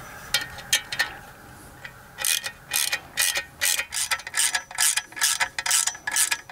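Hand ratchet wrench clicking as it tightens a stainless steel lag bolt into a wall anchor: a few single clicks, then from about two seconds in quick back-and-forth strokes, two or three a second. The anchor is one that he feels is not grabbing.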